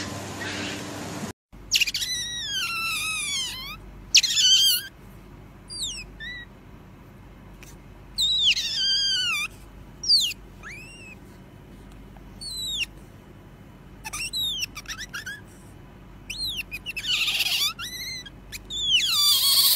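Pet otter chirping: repeated high-pitched squeaks, each falling in pitch, coming in bursts with short pauses and loudest near the end. For about the first second there is splashing water before a brief cut.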